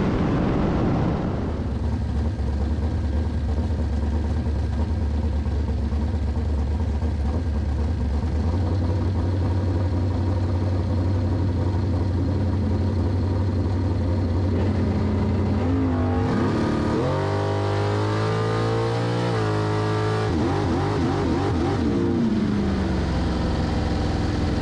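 Bracket-racing dragster's engine idling steadily and loudly on the starting line. About two thirds of the way in, the engine speed rises and falls for several seconds.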